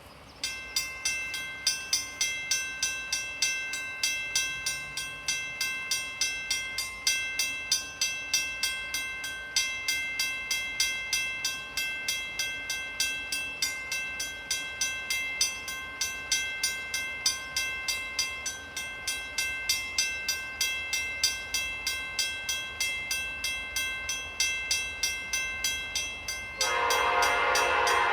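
Railroad crossing bell ringing in steady, evenly spaced strikes. Near the end, a locomotive air horn, a Nathan P5 on the leading NS SD70M-2, starts blowing, louder than the bell.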